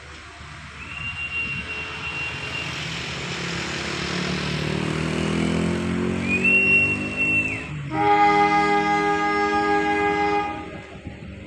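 A CC201 diesel locomotive's multi-tone air horn sounds one long blast near the end. Before it come two shrill whistle blasts and a diesel engine drone that rises in pitch.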